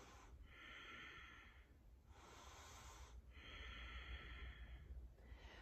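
Faint, slow breathing of a woman holding a yoga pose: two full breath cycles, in and out, each breath lasting about a second and a half.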